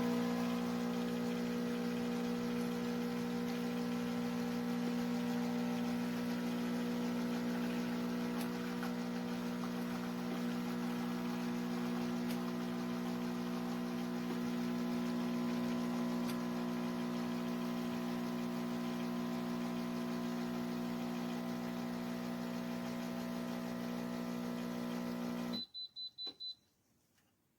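Electric espresso machine running with a steady mains-pitched hum, which cuts off abruptly near the end, followed by four short high beeps.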